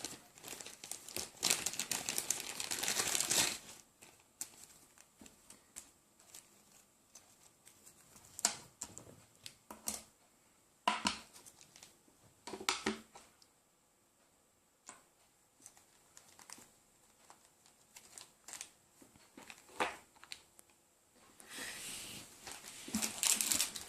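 Plastic packaging crinkling as small 3D-printer hotend parts are unwrapped, in longer bursts at the start and again near the end, with scattered light clicks and taps between.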